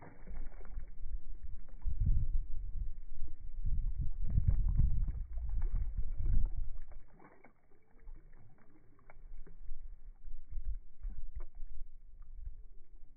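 Low, muffled sloshing and swirling of creek water as a released largemouth bass swims off from the bank. It is loudest in the first half and drops to faint scattered ticks after about seven seconds.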